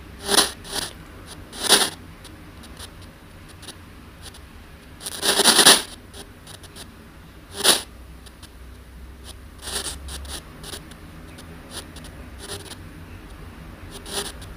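Short, irregular bursts of hiss and crackle from a handheld ghost-box radio device with a telescopic antenna, a dozen or so in all, the longest about five seconds in, over a faint low hum.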